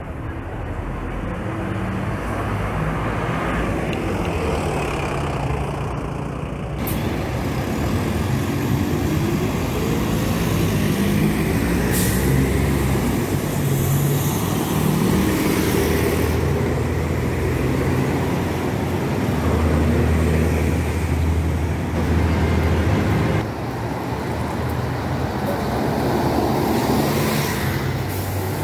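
City bus engines running and pulling away along a busy avenue, over steady road traffic noise from passing cars and buses. The sound changes abruptly at about seven, sixteen and twenty-three seconds in.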